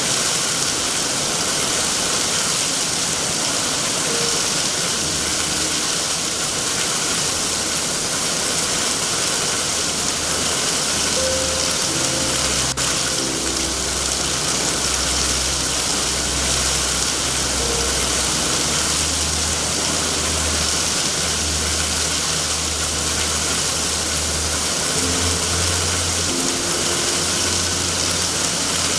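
Steady heavy rain, with a low rumble that comes and goes from about five seconds in.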